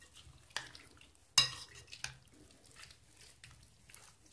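Grated celery salad in yogurt being stirred in a bowl: a utensil scraping and clinking irregularly against the bowl, with the sharpest clink about a second and a half in.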